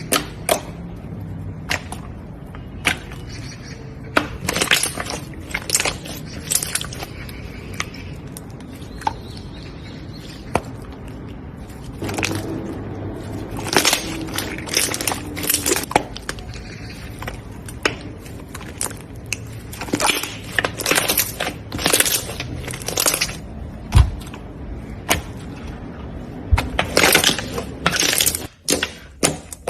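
Slime being squeezed and pressed by hand, with many irregular crackling pops and clicks, some in quick clusters, over a steady background hiss.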